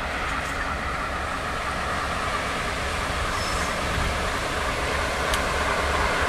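Electroputere LDE 2100 (class 60) diesel-electric locomotive hauling a freight train as it approaches. The engine and the wheels on the rails make a steady rumble that grows slowly louder.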